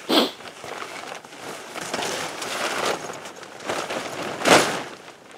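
Nylon fabric of an Eskimo Fatfish 949 ice fishing tent rustling and flapping as it is lifted and unfolded, with two sharp swishes, one right at the start and one about four and a half seconds in.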